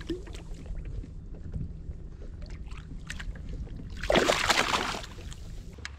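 A bass splashing into the water beside a kayak as it is released, a loud splash about four seconds in that lasts close to a second.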